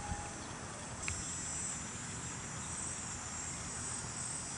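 Insects shrilling in a steady high-pitched chorus that swells and eases in patches, over soft outdoor background noise, with a light click about a second in.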